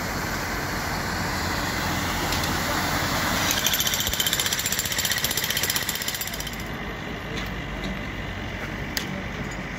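Jackhammer breaking the road surface, hammering rapidly for about three seconds from a few seconds in, over steady street and traffic noise.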